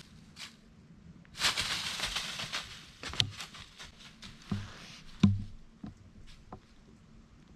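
A rustle lasting about a second and a half, then a few soft thumps, the loudest about five seconds in.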